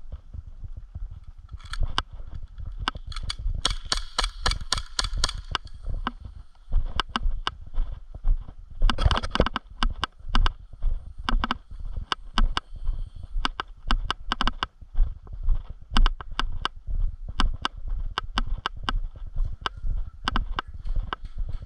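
Footsteps walking at an even pace, about two steps a second, with heavy low thumps on the microphone. Around four to five seconds in comes a rapid run of clicks.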